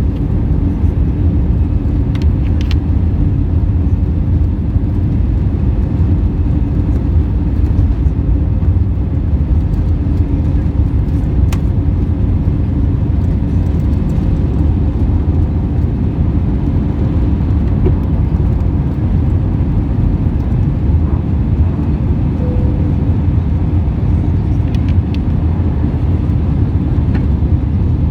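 Cabin noise of an Airbus A320 taking off: the engines at takeoff thrust and the rumble of the roll, running on steadily through lift-off into the climb, with a low hum beneath.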